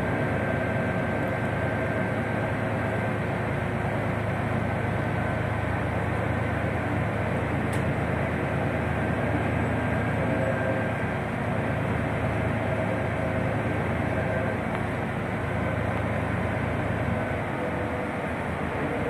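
Cabin noise of a Solaris Urbino IV 12 city bus on the move: steady running noise from the drivetrain and road, with a faint steady whine above it.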